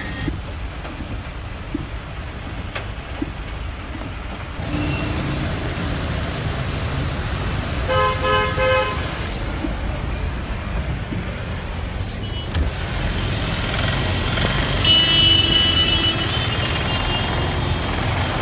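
Road traffic noise in heavy rain, a steady rumble of vehicle engines and tyres. A car horn sounds once, briefly, about eight seconds in, and a second, higher-pitched horn sounds near fifteen seconds.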